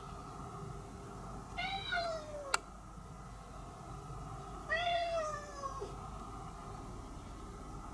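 Cat meowing twice, two long meows that each fall in pitch, with a sharp click just after the first.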